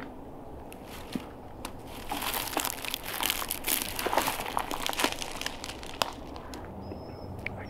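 Dry leaf litter and twigs crackling and rustling under a hunter's boots and leafy camouflage suit as he crouches and settles onto the ground, with sharp snaps among the rustle; it swells about two seconds in and eases off near the end.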